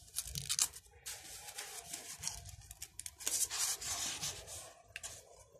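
Paper pages of a storybook being turned by hand: a run of rustling and rubbing as the page is lifted and smoothed flat, which stops near the end.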